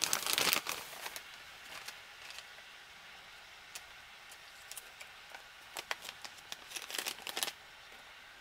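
Plastic ration packaging crinkling under hands: a burst of crinkling at the start as the brown plastic outer pouch is handled, then a few faint clicks, and another short spell of crinkling and clicking near the end as the clear plastic water-measuring bag is opened.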